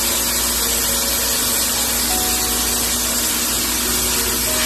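Mixed vegetables stir-frying in a stainless steel pot: a steady, loud sizzling hiss.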